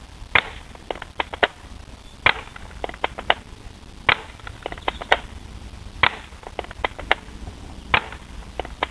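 Beretta BB gun being fired repeatedly, about five or six sharp snaps roughly two seconds apart, with lighter clicks between the shots.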